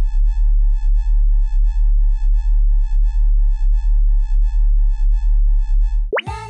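Synthesized sci-fi 'sensing' sound effect: a loud deep hum under a high electronic tone that pulses about three times a second. It cuts off about 6 seconds in with a quick rising sweep as music begins.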